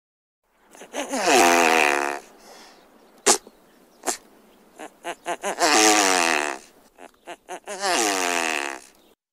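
Great bustard calling: three drawn-out, breathy calls that each fall in pitch, separated by a few short clicks and pulses.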